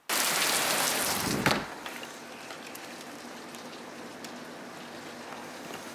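Heavy rain falling, a dense steady hiss. It comes in loud, swells with a brief low rush about a second and a half in, then settles to a steady, quieter downpour.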